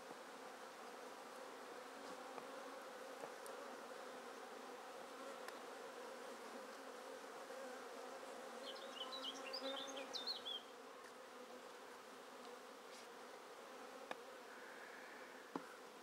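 Honeybees buzzing steadily around an open hive. A short run of high chirps comes about ten seconds in, and a couple of sharp clicks near the end.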